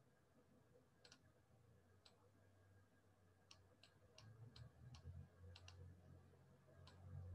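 Near silence with about ten faint, irregular clicks of a stylus tapping on a tablet while handwriting, most of them in the second half, over a faint low hum.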